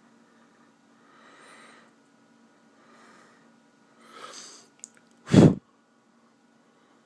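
A person sneezing close to the microphone: two soft breaths, a drawn-in breath about four seconds in, then one short, loud sneeze.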